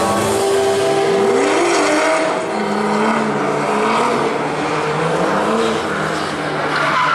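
Drift car engine at high revs, its pitch climbing about a second in, then rising and falling as the throttle is worked through the slide.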